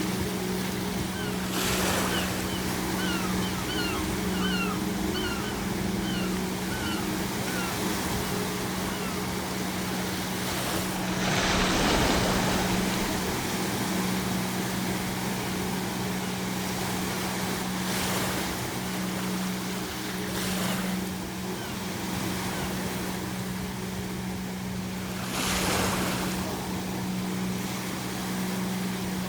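Ocean waves breaking on the shore: several surges of surf, the biggest about twelve seconds in. Seagulls call in a quick series of short cries over roughly the first eight seconds, and a steady low hum sits underneath.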